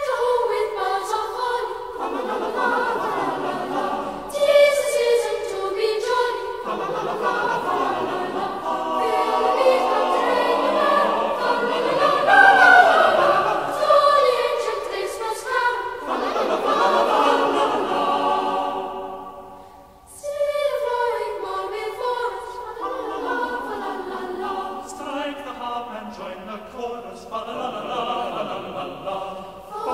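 Background music of a choir singing, with a brief fade about two-thirds of the way through before the next phrase starts.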